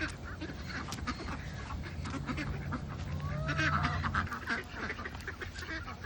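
Ducks quacking repeatedly, with a steady low hum for about two seconds in the middle.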